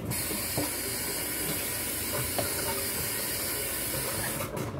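Kitchen faucet running into a stainless steel sink: a steady rush of water that starts suddenly as the tap is turned on and drops away just before the end, with a few light knocks.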